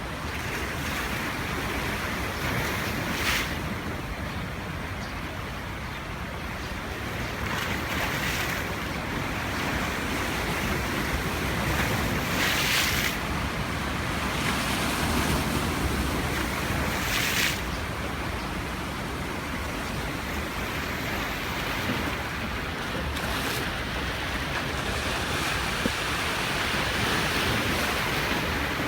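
Sea waves washing onto a beach: a steady rush of surf, with a short, brighter splash of a breaking wave about every four to five seconds.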